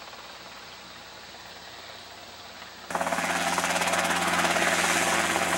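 Robinson R22 Beta II helicopter, faint in the distance, then about three seconds in a sudden jump to it hovering close by: the four-cylinder piston engine and rotors running loud and steady, a hum with a rapid even beat.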